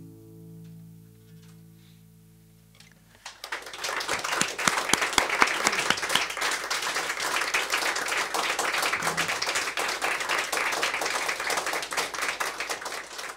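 The final chord of an acoustic guitar rings out and fades over about three seconds, then applause starts and carries on for about ten seconds.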